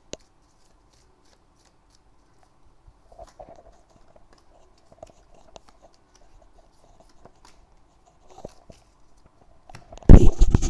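Tarot cards being dealt one by one onto a table: faint soft taps and slides of the cards, then a sudden much louder clatter of the deck being handled near the end.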